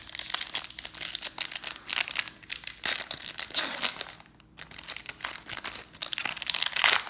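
Plastic wrapper of a 2018 Update baseball card pack being torn open and crinkled by hand, with a brief pause about four seconds in.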